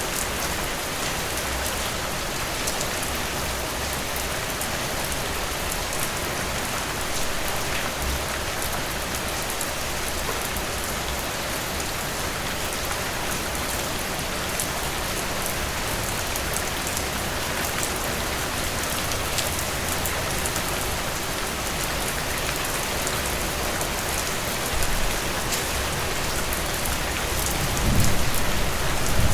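Heavy rain falling in a steady, dense downpour, with raindrops pattering on surfaces. A low rumble swells near the end.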